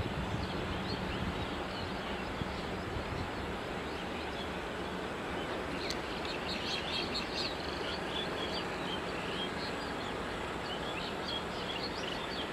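Small birds chirping and twittering, more busily from about halfway through, over a steady background rush of noise and a low hum that fades out near the end.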